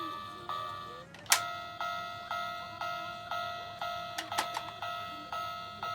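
Toy railway crossing (Plarail kan-kan crossing) ringing its electronic warning bell, a two-tone ding repeating about twice a second. A sharp click sounds a little over a second in, and after it the ding resumes slightly higher in pitch.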